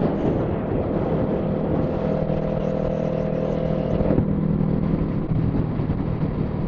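Kawasaki Z650 parallel-twin motorcycle engine running at a steady highway cruise, heard from inside the rider's helmet with wind rush. Part of the engine note falls away about four seconds in.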